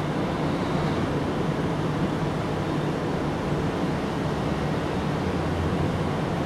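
Steady low background rumble with an even hum, unchanging throughout.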